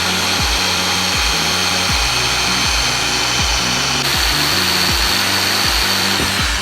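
A power tool running steadily with a hiss and a faint high whine, over background music with a regular beat. It starts and stops abruptly.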